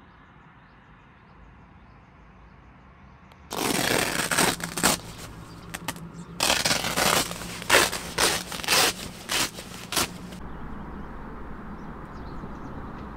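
Loud scraping and rustling in two bursts, one starting about three and a half seconds in and a longer run of several strokes from about six to ten seconds, over a low steady hiss.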